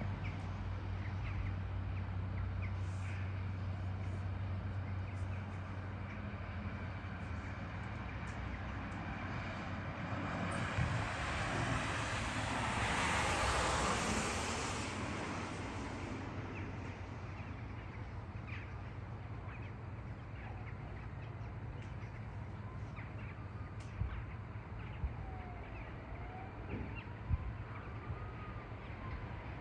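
Wild birds calling now and then over a steady low rumble, with a broad rush of noise that swells to a peak about halfway through and fades away.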